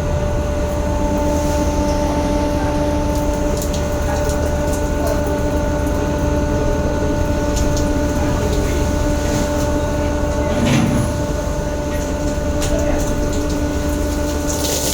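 Fishing boat's engine running with a steady, even drone, with scattered light knocks and a brief louder swell about eleven seconds in.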